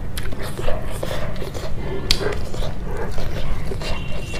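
Close-miked eating sounds: chewing and lip smacking with scattered small clicks, over a steady low hum.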